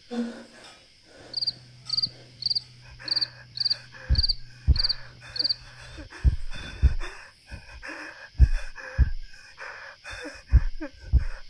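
Film sound design: a cricket chirps eight times at an even pace over a low hum. About four seconds in, deep double thumps like a heartbeat start, one pair every two seconds or so.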